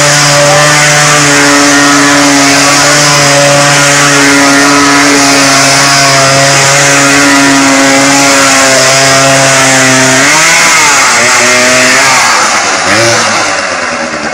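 Motorcycle engine held at high, steady revs while the rear wheel spins in the dirt. About ten seconds in the revs drop and waver, and the engine eases off near the end.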